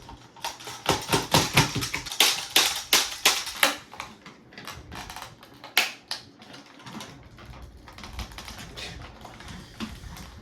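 Sharp clicks and knocks of plastic parts as a Nerf blaster is worked apart by hand and with tools: a quick run of clicks over the first few seconds, one louder knock about six seconds in, then lighter scattered clicks.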